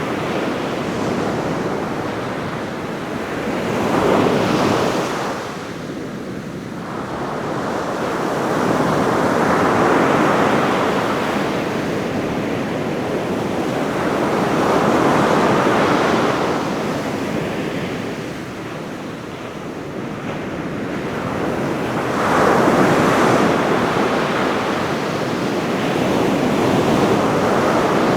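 Ocean surf washing onto a beach: waves break and wash up in slow surges every five seconds or so, blending into a steady rushing noise, with wind in the background.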